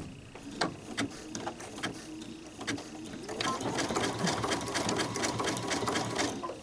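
Domestic sewing machine stitching a short, narrow zigzag across the ends of a zipper on cork fabric. It starts with slow, separate needle strokes and picks up into a faster, steady run about halfway through.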